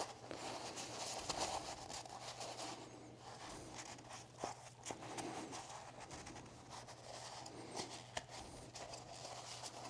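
Faint rubbing and scratching with a few light clicks, from the inside of a car engine's oil filter housing being wiped clean, over a faint steady hum.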